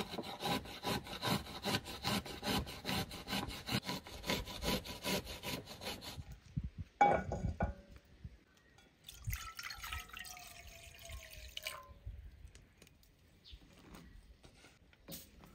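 Garlic cloves rasped on a small metal hand grater, about three strokes a second for some six seconds. Then a single loud knock, and a few seconds later water poured into a metal frying pan.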